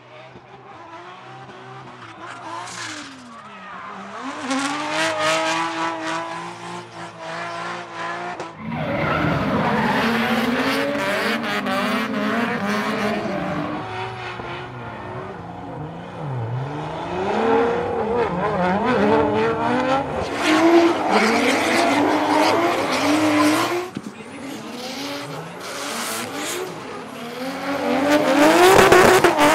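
Nissan Skyline R32 drift cars revving hard, the engine pitch rising and falling again and again as they slide, with tyres squealing. The sound changes abruptly about nine seconds in and again around twenty-four seconds as it switches from one car to another.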